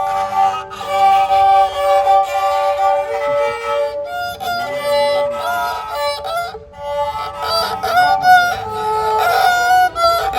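Bodo serja, a bowed folk fiddle, played with the bow: a melody of held notes, with a couple of short breaks between strokes about four and six and a half seconds in.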